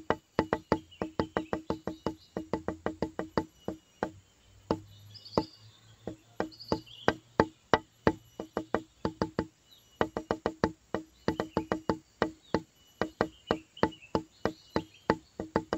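Background music made of quick, evenly spaced wood-block-like knocks, about four a second, with short breaks about four and ten seconds in and faint high chirps over it.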